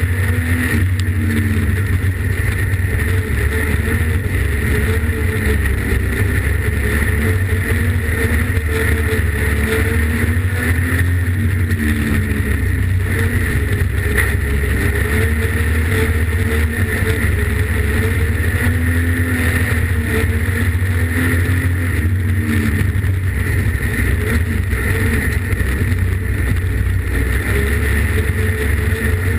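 Streetstock race car's engine running hard at racing speed, heard from inside the cabin: a loud, heavy rumble whose pitch rises and falls repeatedly as the car accelerates and lifts around the laps.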